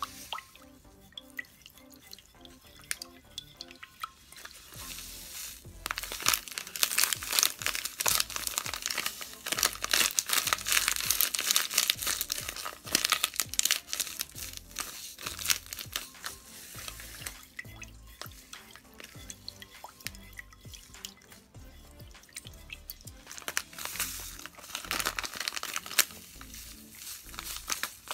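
Soft background music over crackly handling noise: a foil powder packet crinkling and a wooden stir stick scraping and tapping in a bowl of hot water as crystal powder is stirred in. The crackling is heaviest for a long stretch in the first half and again briefly near the end.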